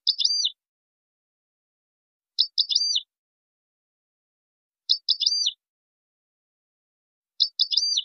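European goldfinch giving a short, high three-note call, a quick note followed by two hooked notes, repeated four times about every two and a half seconds, the same each time.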